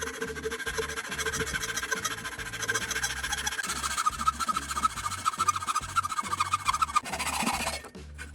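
A knife being sharpened: rapid scraping with a squealing tone that jumps higher about three and a half seconds in and stops abruptly near the end.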